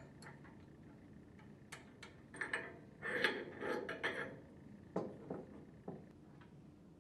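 Faint metal clinks and small knocks as the packing gland nuts on an internal gear pump are spun off by hand and the packing gland is slid off the shaft and set down on a wooden bench. A short run of rattling clinks comes in the middle, and a few separate knocks follow.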